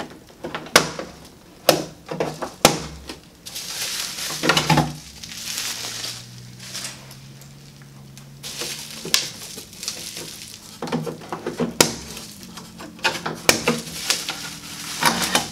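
Packing being pulled off a 3D printer: sharp snaps at irregular intervals as zip ties are cut and pulled free, among rustling and crinkling of plastic wrap and bubble-wrap foam.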